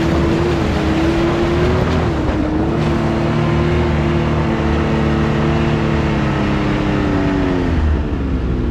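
Side-by-side UTV engine running steadily under way, its pitch wavering a little, then easing off and dropping in pitch near the end.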